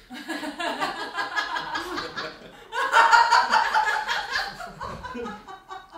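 Several people laughing and chuckling, the laughter swelling about three seconds in.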